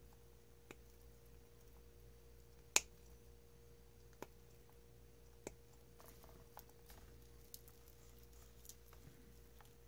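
Small diagonal cutters snipping through the plastic housing and shielding of an Xbox 360 power supply's DC connector: four sharp snaps, the loudest about three seconds in. Lighter clicks and ticks follow in the second half.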